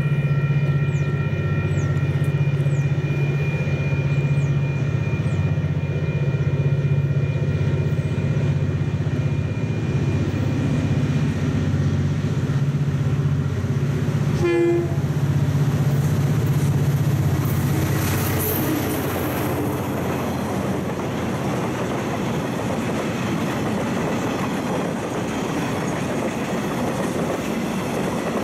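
Diesel freight locomotive approaching with a steady engine drone, sounding a short horn note about halfway through. The drone fades as it passes, and its empty log wagons roll by with a steady rumble and rail clatter.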